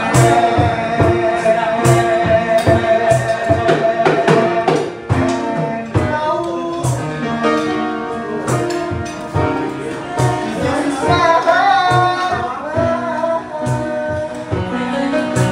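Waiters singing a song over music with a steady beat, opening with a long held note that lasts about four seconds.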